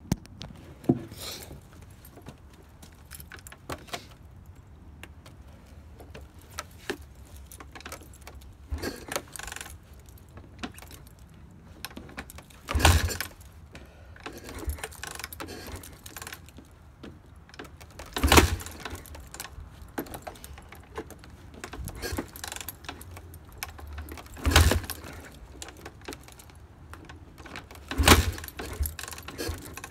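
Kawasaki KX450F's four-stroke single-cylinder engine being kick-started cold: a run of kicks on the kickstarter, each a short metallic clatter as the engine turns over, lighter ones early on and four hard kicks a few seconds apart later. The engine does not catch and settle into running.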